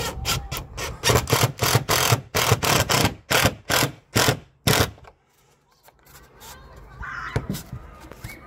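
DeWalt cordless impact driver driving a screw through a plastic disc insulation anchor into foam insulation board, in a quick series of short trigger bursts lasting about five seconds. After that come quieter handling sounds and a sharp click.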